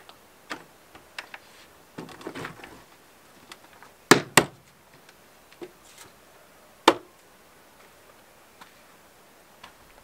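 Wooden knocks as a small folding wooden table is stood on the ground and pressed on: two sharp knocks close together about four seconds in, another about three seconds later, with lighter wooden taps between.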